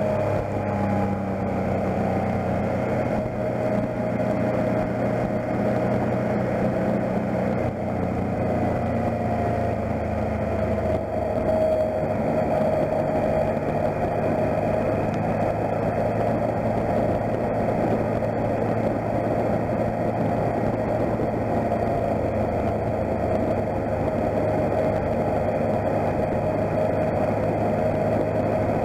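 Motorcycle engine running steadily at cruising speed, heard from a camera mounted on the bike, over a steady rush of wind and tyre noise on a wet road.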